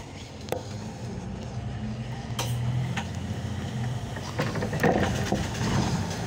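Cabin noise inside a Solaris Urbino 18 articulated bus under way: a steady low engine and drivetrain hum with road noise, getting louder toward the end, and a few sharp rattles and knocks from the body and fittings.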